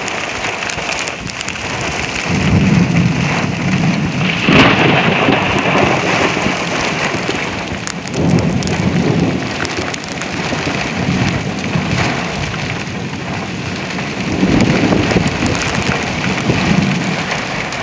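Heavy thunderstorm rain pouring and pelting the car while strong wind gusts buffet it, the low rumble swelling in surges several times.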